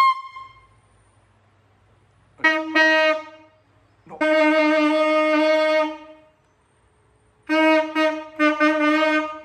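Saxophone played by a complete beginner on his first attempt: two short honks, then one long note held about two seconds, then a string of short, choppy notes, all on the same single pitch with silent gaps between.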